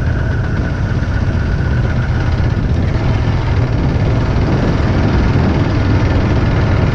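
Motorcycle engine running steadily while riding, with a steady rush of wind and road noise.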